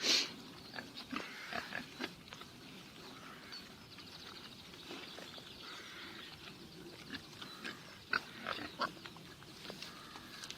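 Pigs grunting and squealing, with one loud squeal at the very start and short, scattered calls through the rest, busier again near the end.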